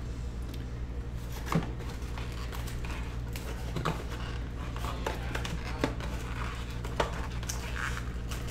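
Hands working a cardboard box, rustling and scraping, with a few sharp knocks, as a baseball in a plastic display cube is worked out of it: the cube is stuck tight. A steady low hum runs underneath.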